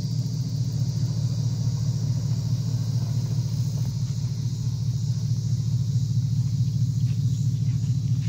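A steady low rumble with a steady high hiss above it, unchanging throughout.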